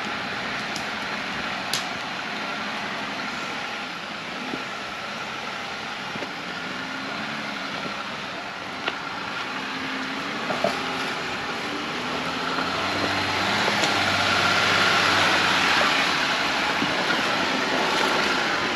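Jeep Gladiator Rubicon driving off-road: steady engine and tyre noise with a few sharp clicks and knocks. The noise swells somewhat in the second half.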